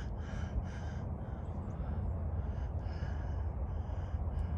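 Steady low wind rumble on the microphone, with faint, broken high-pitched chirping sounds in the background.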